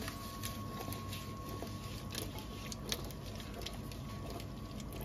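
Diced zucchini sizzling lightly in olive oil in a frying pan, with scattered small crackles and pops as the pan is shaken to toss the pieces and coat them in the oil.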